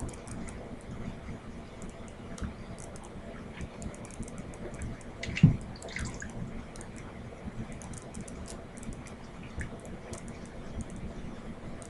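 Gloved hands pulling fat and skin from a raw whole chicken: wet handling noises with many small clicks, and one louder thump about halfway through.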